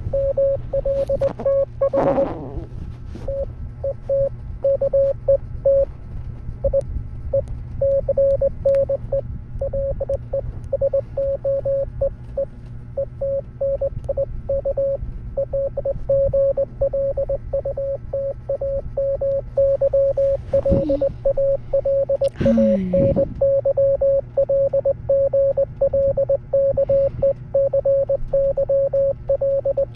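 Morse code sounded as a single steady mid-pitched beep, keyed on and off into a fast stream of short and long beeps.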